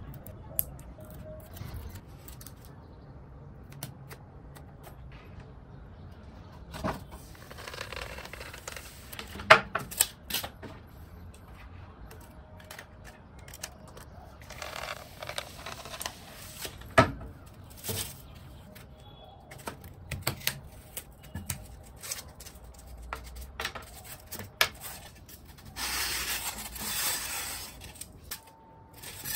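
Craft handling sounds while shaping polystyrene foam: scattered knocks and taps of wood and tools on a table, with three stretches of scratchy rubbing as a sandpaper-wrapped stick is worked along a foam cylinder. Two sharp knocks, about nine and seventeen seconds in, are the loudest.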